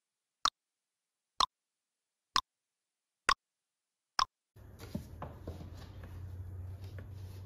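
Countdown timer sound effect ticking about once a second, five ticks over dead silence. About four and a half seconds in, faint room noise returns with a few soft handling knocks as a hand reaches over the book page.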